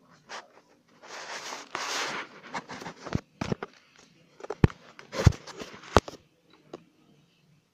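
Handling noise from the recording device being picked up and moved: a rustle about a second in, then a series of sharp knocks and bumps.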